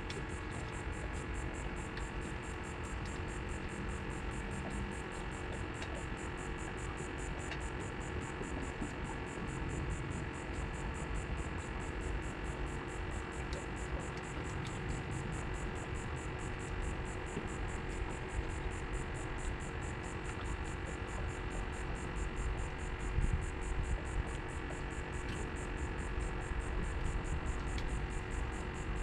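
A steady hum with several fixed tones over a low rumble, unchanging throughout.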